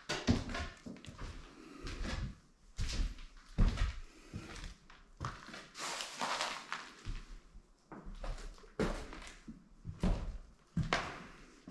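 Irregular knocks, thuds and scuffs at uneven intervals, with a longer scraping noise in the middle.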